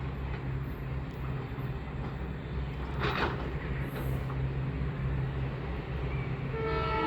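WDP4B diesel locomotive's 16-cylinder two-stroke EMD 710 engine humming steadily as the train approaches. A short hiss comes about three seconds in, and near the end the locomotive's horn starts to sound, a steady chord of several tones.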